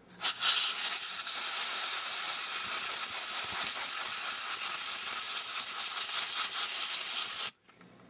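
Can of compressed air (Ultra Duster) spraying through its thin red extension straw into a camera's telescoping lens barrel to blow out sand and debris: one long steady hiss that cuts off sharply near the end.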